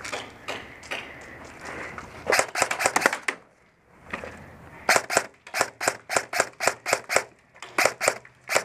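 Airsoft guns firing: a quick cluster of shots about two seconds in, then a steady string of single shots, about three a second, from about five seconds in.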